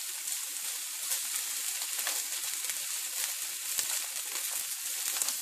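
Pancetta slices frying in a hot nonstick pan: a steady high hiss dotted with many small crackles and pops, the meat just starting to brown.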